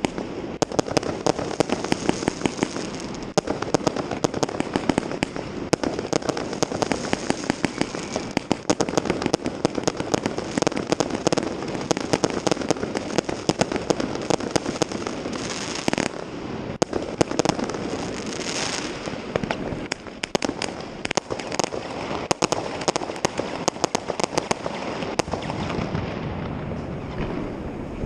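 New Year's fireworks and firecrackers going off: a dense, continuous crackle of many overlapping bangs and pops.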